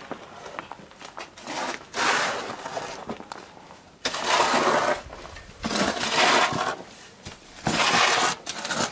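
Shovels scraping into loose earth and tossing it aside, uncovering an underground pit oven: four loud rasping strokes, each about a second long, a second and a half to two seconds apart.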